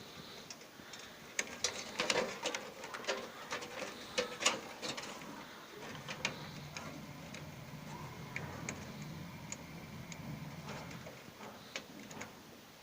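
Small sharp clicks and taps of plastic connectors and computer parts being handled, thickest in the first five seconds and then only a few now and then. Fitting front-panel connector leads such as the reset switch onto the motherboard pins. A faint low hum comes in about six seconds in.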